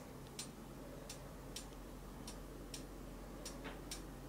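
Faint, regular ticking, one tick roughly every half second, over a low steady hum.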